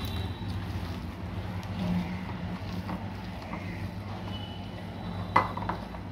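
Hands squishing and kneading a moist spice-and-coconut stuffing in a steel bowl, with small clicks and one sharp tap against the bowl about five seconds in, over a steady low hum.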